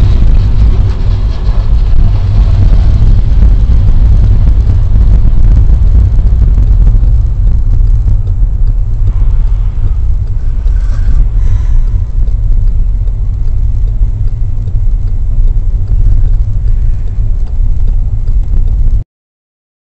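Loud, steady low rumble of a car driving, road and engine noise picked up by a dashcam inside the cabin while passing through a tunnel. It cuts off suddenly about a second before the end.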